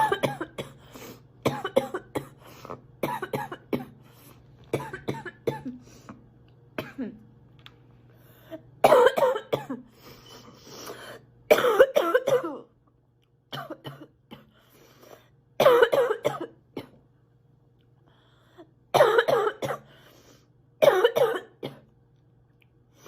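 A sick girl coughing repeatedly: a run of short coughs, then five louder fits of several coughs each from about nine seconds in.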